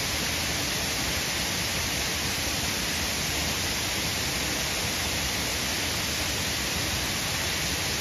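Steady, even rush of falling water from a waterfall, unchanging throughout.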